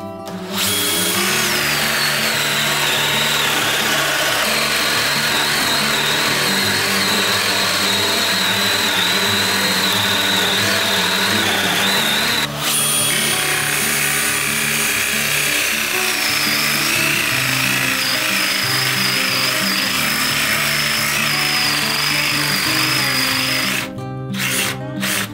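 Cordless drill running at speed with a Forstner bit boring into a wood block: a steady motor whine over the rasp of the bit cutting. It breaks for a moment about halfway and stops about a second before the end. Background music plays underneath.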